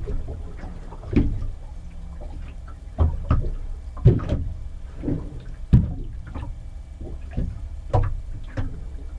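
Small waves slapping irregularly against the hull of an anchored 21-foot pilothouse boat, heard from inside the cabin: a series of short knocks about once a second over a low steady rumble.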